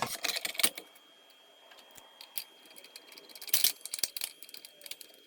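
Metallic clicks and rattles of a saw blade being handled and fitted back onto the arbor of a Bosch CM10GD 10-inch miter saw: a quick run of clicks at the start, scattered taps, and another cluster of clicks about three and a half seconds in.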